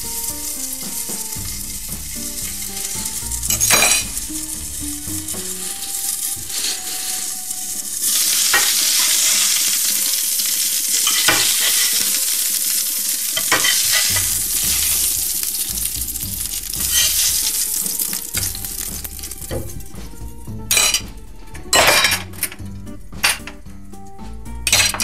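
Crucian carp frying in oil in an open pan, a steady sizzle that grows louder about a third of the way in and eases off again. A metal spatula scrapes and taps against the pan and plate, with several sharp clinks near the end.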